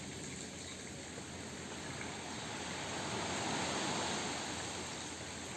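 Ocean surf washing steadily, swelling a little past the middle.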